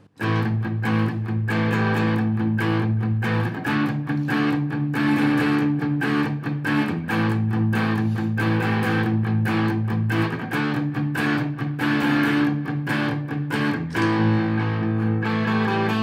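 Electric guitar improvising a lead of quick picked notes in the A minor pentatonic scale over a backing of sustained A minor and D minor chords, which alternate about every three and a half seconds. The music starts suddenly at the very beginning.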